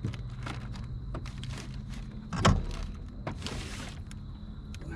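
Scattered clicks and knocks of a fish and gear being handled aboard a kayak, with one louder thump about two and a half seconds in and a brief rustle soon after, over a low steady hum.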